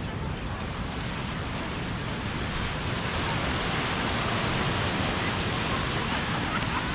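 Ocean surf from big waves breaking on the shore: a steady rushing wash that swells a little in the middle.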